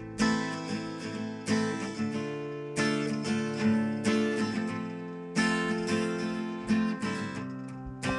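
Guitar strumming chords, a strong strum about every 1.3 seconds with lighter strums between, each chord ringing on and fading.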